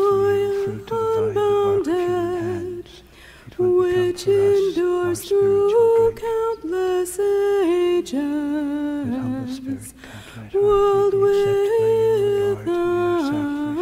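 A hymn sung in church by a high voice, slow phrases of long held notes with vibrato, with short breaths about three seconds in and again about ten seconds in.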